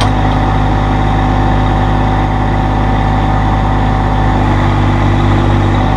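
Massey Ferguson GC1720 sub-compact tractor's three-cylinder diesel engine running steadily at a constant speed.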